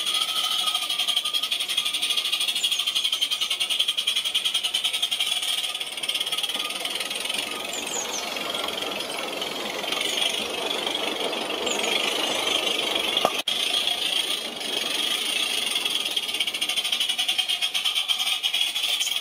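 Live-steam model locomotive (a modified Cheddar Models Iver) running with its coaches, a fast, even chuffing from its exhaust over a steady hiss.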